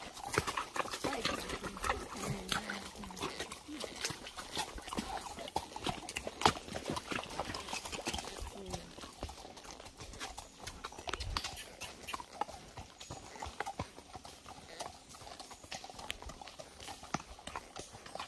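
Horses walking, their hooves clopping on hard ground in an irregular run of strikes.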